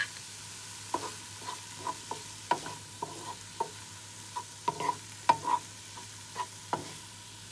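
Wooden spatula stirring a frying tomato and pepper mixture in a nonstick frying pan: irregular knocks and scrapes of the spatula against the pan over a steady soft sizzle.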